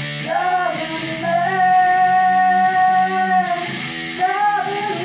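Music: an electric guitar, a Squier Sonic Stratocaster, played through a Danelectro overdrive pedal and a Fender amp, in a song with a voice. One note is held for about two seconds in the middle, with shorter bending notes before and after it.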